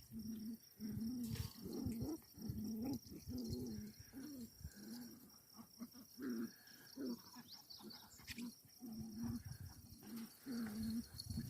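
Short, low animal calls repeated over and over, roughly one or two a second, with brief pauses between runs.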